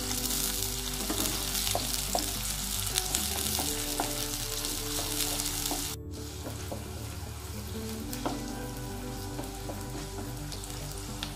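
Chopped onions sizzling in hot oil in a clay pot, stirred with a wooden spatula that scrapes and knocks now and then. The sizzle drops a little about six seconds in.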